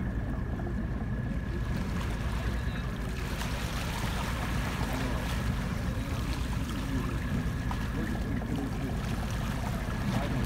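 Waterfront ambience: a steady low rumble with a faint, thin, steady whine above it.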